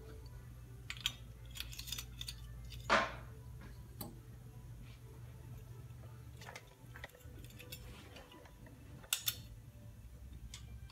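Scattered light metal clinks, clicks and knocks of engine parts and tools being handled on a workbench, over a steady low hum that stops a little past halfway.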